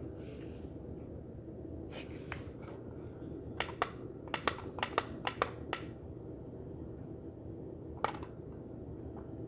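Buttons on a Timex battery alarm clock clicking as they are pressed to set the time: a few clicks about two seconds in, then a quick run of about nine, and one more near the end.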